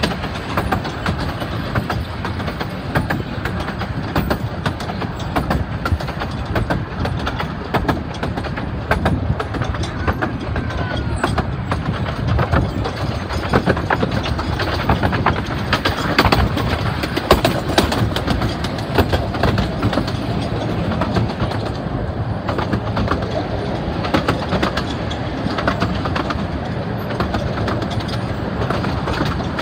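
Miniature-railway passenger carriages rolling along the track: a steady rumble of wheels on rail with many short, irregular clicks and knocks.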